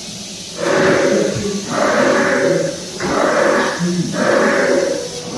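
Recorded dinosaur sound effect from the exhibit's loudspeakers: five loud, noisy pulses, each about a second long and about a second apart.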